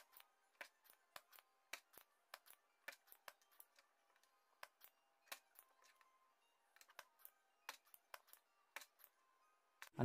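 Near silence broken by faint, irregular small clicks, two or three a second, from a soldering iron tip working on the pads of a car stereo circuit board and the board being handled.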